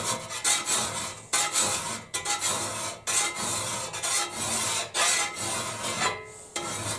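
Hand file rasping across the edge of a steel fire shovel clamped in a vise, sharpening it in even strokes about once a second.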